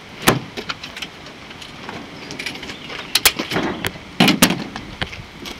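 Metal clicks and clunks of an MSA fridge drop slide being unlatched and pulled out on its runners, with a sliding rasp between the knocks. A sharp click comes about a quarter second in, and the loudest clunks come about four seconds in.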